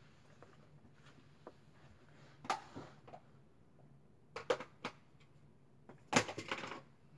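A few light knocks and clatters of small objects being handled and set down on a desk. There is one about two and a half seconds in, three quick ones a little past the middle, and a short cluster near the end.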